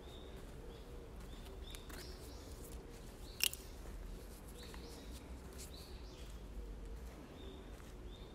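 Footsteps on a dirt woodland trail, with a bird calling in short, high notes repeated every second or so. One sharp click about three and a half seconds in.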